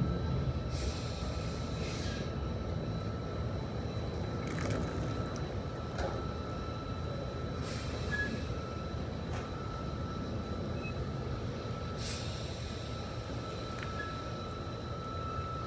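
Semi truck's diesel engine running low and steady as the tractor-trailer reverses slowly, with several short hisses of air.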